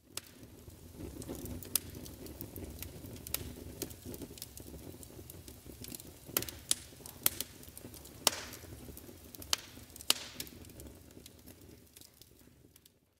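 Wood fire burning: logs crackling with about a dozen irregular sharp pops over a low steady rumble.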